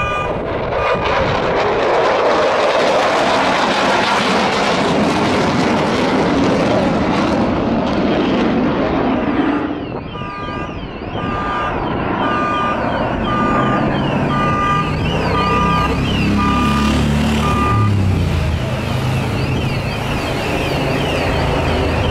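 F-16 Fighting Falcon's single jet engine roaring overhead, its tone sweeping downward over the first ten seconds, then continuing as a steadier roar. In the second half a short high electronic beep repeats about once a second.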